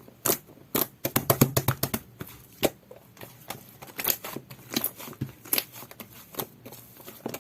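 Jelly-textured slime being squished and poked by hand, giving irregular sharp wet clicks and pops, with a quick cluster of them between about one and two seconds in.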